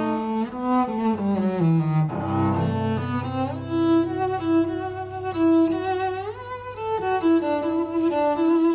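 Cello playing a slow melody, with a long low note held underneath for much of the time.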